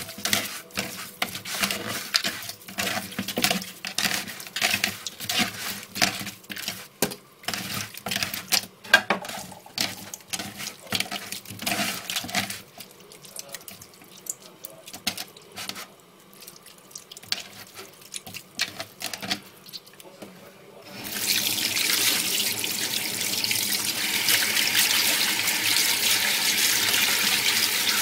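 Raw chicken wings worked by hand with salt in a plastic bowl in a stainless-steel sink: irregular squelching, rubbing and clicking. About 21 seconds in, the tap turns on and water runs steadily into the bowl and sink.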